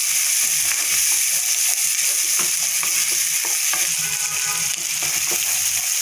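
Diced onions sizzling in hot oil in a non-stick kadhai as they fry toward brown, a steady hiss. A flat wooden spatula scrapes and knocks against the pan in short, irregular strokes as they are stirred.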